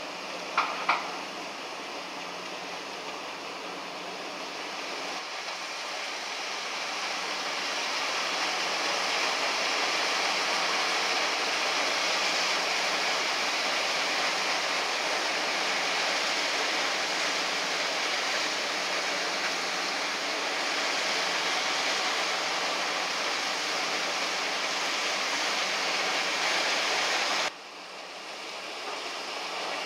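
Crushed ice running through an ice-loading machine and its chute into a fishing boat's hold: a steady rushing hiss that builds over the first several seconds. It drops abruptly near the end and then rises again. A couple of sharp clicks come about a second in.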